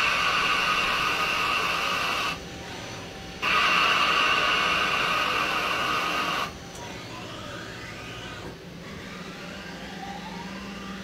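CNC lathe turning a metal bar: the cut gives a loud, steady high-pitched tone that breaks off about two seconds in and resumes a second later, stopping for good about six and a half seconds in. After that, quieter machine sound with faint rising and falling whines.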